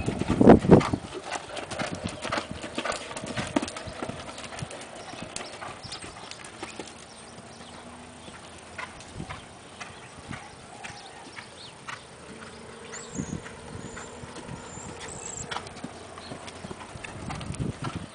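Hoofbeats of a horse cantering on sand arena footing, a steady run of dull thuds. A few louder thumps come about a second in, and the hoofbeats grow fainter after that.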